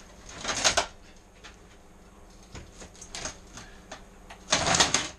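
Stick (arc) welder striking brief tack welds: two short crackling bursts, one about half a second in and one near the end, with light metallic clicks between.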